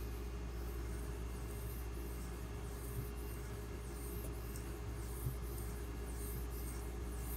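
154CM steel knife blade being stroked across a very hard Pride Abrasives 10,000-grit water stone: a series of faint, soft high scrapes, one per stroke, growing clearer near the end.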